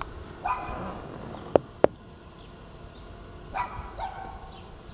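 Dog barking: one bark about half a second in and another about three and a half seconds in, with two sharp clicks in between.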